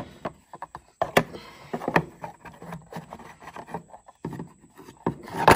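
Hard plastic holster parts clicking and knocking as they are handled and the push-in mounting hub is worked loose, with a sharper click near the end.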